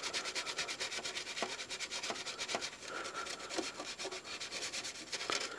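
Toothbrush scrubbing paint off a clear Lexan RC car body wetted with nitro fuel: rapid, even back-and-forth scratchy brushing strokes.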